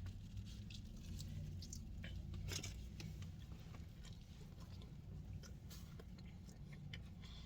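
Close-up eating sounds: soft biting and chewing with scattered small clicks and crackles, over a faint low hum.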